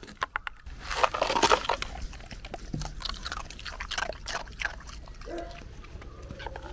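Dogs licking, biting and crunching on broken sheets of ice from a frozen paddling pool, with sharp clicks and cracks of the ice. The crackling is loudest about a second in.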